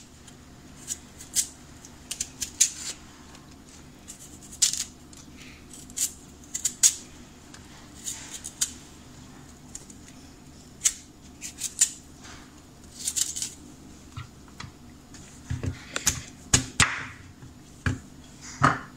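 Knife cutting and scraping cassava over a wooden cutting board: scattered short scrapes and clicks, with a few duller knocks of pieces on the board near the end.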